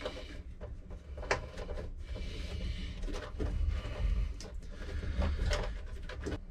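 Scattered plastic clicks and knocks of hands working the hose fittings and wiring at the base of a 12-volt live well / washdown pump, over a steady low rumble.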